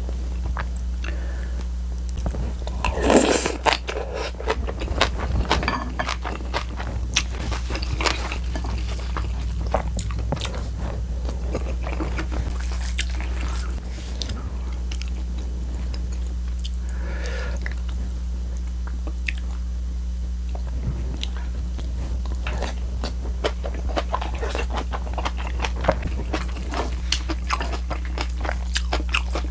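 Close-miked chewing with crunchy bites and wet mouth sounds, the loudest burst about three seconds in, over a steady low hum.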